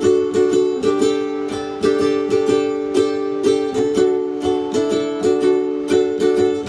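Ukulele strumming chords in a steady rhythm, an instrumental break with no singing, with some acoustic guitar.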